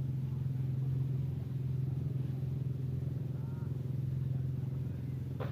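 An engine running steadily at idle, a constant low hum, with faint voices in the background and one sharp knock near the end.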